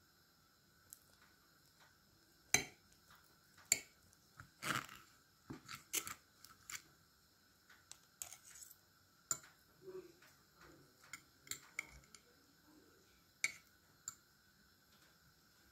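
Knife and fork clicking, tapping and scraping against a plate while cutting through a baked egg-stuffed tomato: scattered sharp clicks, with a longer scrape about five seconds in.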